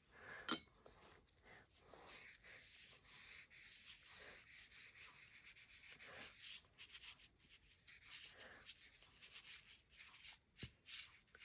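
Wet watercolour paintbrush stroking and brushing across a book page, a faint irregular scratchy swishing. A sharp click about half a second in.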